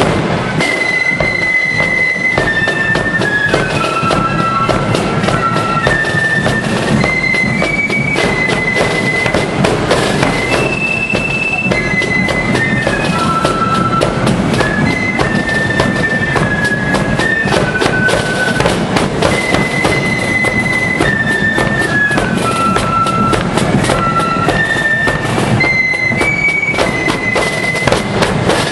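Marching flute band playing a tune: the flutes carry a high melody of held notes over constant snare drumming, a bass drum and cymbals. The same melodic phrase starts over about two-thirds of the way through.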